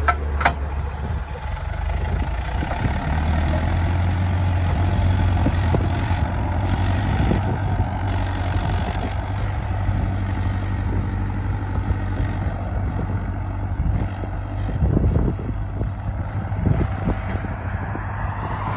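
Fortschritt ZT 323 tractor's diesel engine running steadily under load while pulling a plough through the soil. A sharp click about half a second in.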